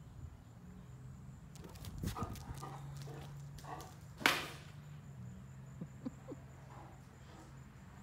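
Great Dane giving a few short woofs while bounding toward birds on the roof, with one loud, sharp bark about four seconds in.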